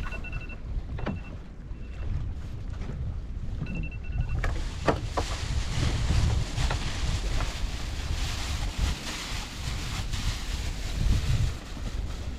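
A small boat's engine running with a steady low rumble, wind buffeting the microphone, and a rushing hiss of wind and water that rises about four and a half seconds in.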